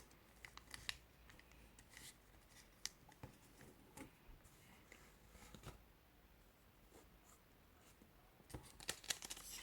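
Faint, scattered rustles and soft clicks of a sheet of colored origami paper being folded and creased by hand, with near silence between them.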